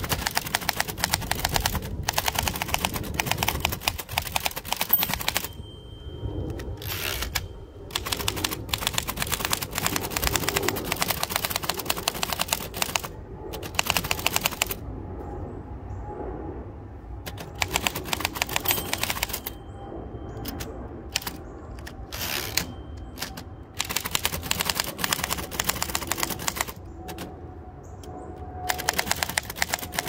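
1925 Remington Model 2 portable typewriter being typed on: runs of rapid key and typebar clatter broken by short pauses.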